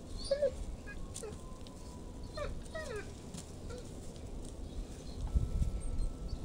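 A dog whining in a few short, falling whimpers during the first three seconds.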